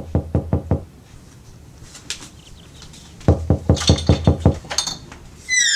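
Knocking on a wooden door in quick runs: a few fast knocks at the start, then after a pause of about two seconds another run of about ten. Near the end comes a short high sound that falls in pitch.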